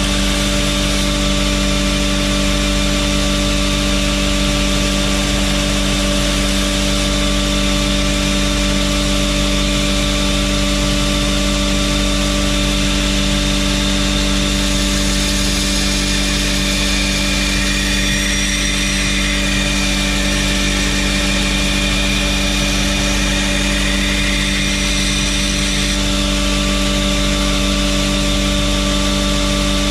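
Belt grinder running steadily with a constant motor hum and belt hiss, grinding the bevels of a steel knife blade; higher whines come and go about halfway through.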